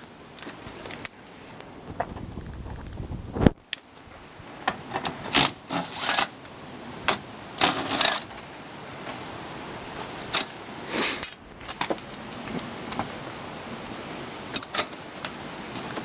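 Metal clinks and rattles from a sheet-metal support bracket and screws being fitted to an air-handler coil cabinet, with a sharp clank about three and a half seconds in. Several short bursts come from a cordless drill driving the bracket screws into the cabinet.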